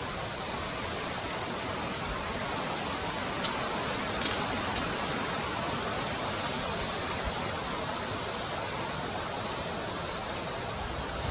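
A steady, even hiss with no changes in level, marked by a few faint, sharp high ticks about three and a half and four seconds in and again near seven seconds.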